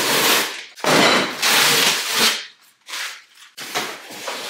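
Packaging being handled and torn open: loud crackling and rustling in two long rips in the first couple of seconds, then shorter rustles.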